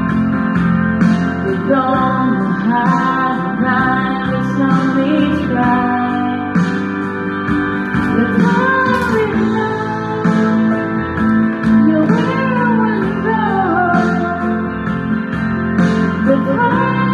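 Karaoke backing track with strummed and plucked guitar, and a woman singing along into a handheld microphone. Gliding melody lines run through the middle.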